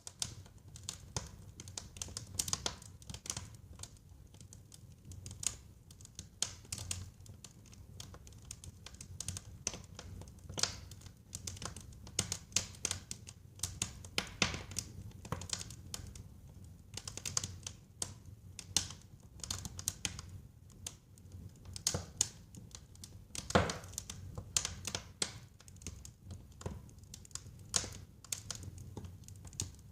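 Wood fire in a fireplace crackling: irregular sharp pops and snaps over a low, steady rumble of the flames, with one louder pop about three-quarters of the way through.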